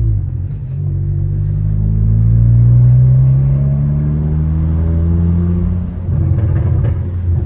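Tuned Mk7.5 Volkswagen GTI's turbocharged 2.0-litre four-cylinder, with a catless downpipe and the muffler deleted, accelerating with its pitch rising steadily for about five seconds. About six seconds in the note breaks into a choppy turbo flutter, the compressor fluttering off throttle.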